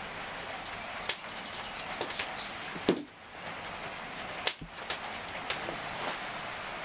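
Small knife peeling raw potatoes by hand: a handful of short, sharp clicks and snicks as the blade cuts through the peel, over a steady hiss.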